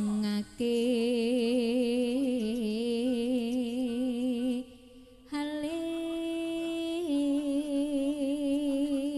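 A lone voice holding long, wavering sung notes without accompaniment, in two phrases broken by a short pause about halfway through; the second phrase opens on a higher, steadier note before the vibrato returns.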